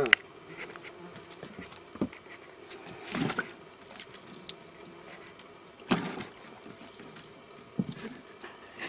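A cat's paws slapping into water in a plastic bucket, splashing in separate strokes every second or two, with the loudest splashes about three and six seconds in.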